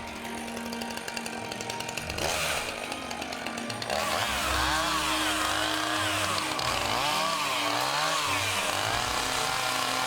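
Gasoline chainsaw with a freshly sharpened chain running. It is steadier and quieter at first. About four seconds in it gets louder, and its pitch rises and falls over and over as it is throttled up and loaded cutting the wood.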